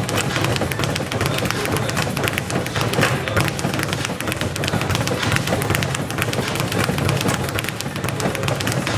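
Speed bag being punched in a fast, continuous rattle, the bag striking the wall-mounted rebound platform many times a second.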